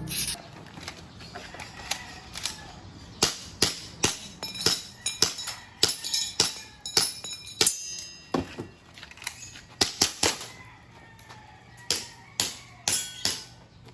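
Toy airsoft gun firing single shots in irregular succession, about two dozen sharp cracks, some in quick pairs, over faint background music.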